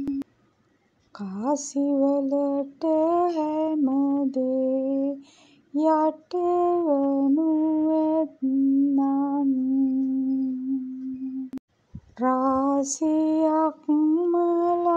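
A woman singing a slow Sinhala song in long held notes, phrase by phrase, with short pauses between lines.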